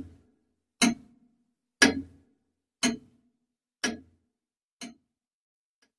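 Clock ticking, sharp single ticks about once a second, the last ones fainter.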